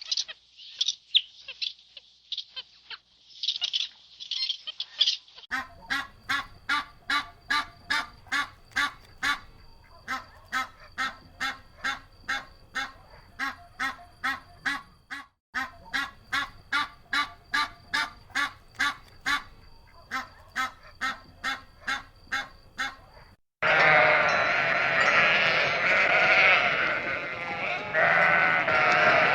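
A run of animal calls. High-pitched chirping comes first. Then a long series of evenly repeated calls, about two a second, stops briefly and resumes. Near the end it gives way to a flock of sheep bleating together.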